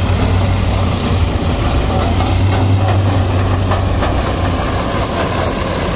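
CNH sugarcane harvester at work, with a tractor running alongside to take the cut cane: a steady, loud, low diesel engine drone.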